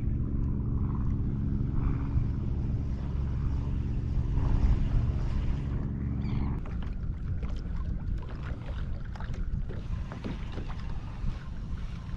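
Steady low mechanical hum with several tones from a boat's drive, cutting off suddenly about six and a half seconds in. After that comes a rough rumble of wind and water on the microphone, with scattered light knocks.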